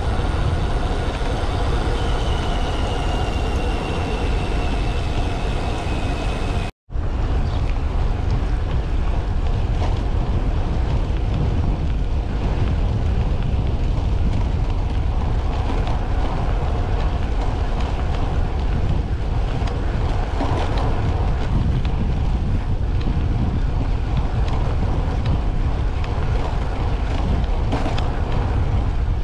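Wind buffeting the microphone of a handlebar camera on a moving road bicycle, with a steady hiss of tyres on a wet road. A faint high whine sinks slightly in pitch before the sound cuts out for an instant about seven seconds in.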